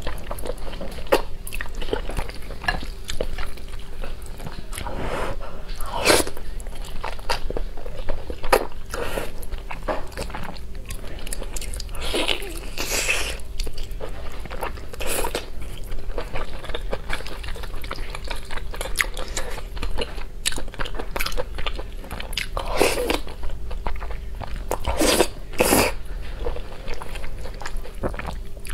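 Close-up eating sounds of spicy fire-chicken (Buldak) instant noodles: repeated slurps of the noodles and wet chewing, with bites into a sauce-coated fried piece. Many short smacks and clicks, broken by a few longer slurps, over a faint steady hum.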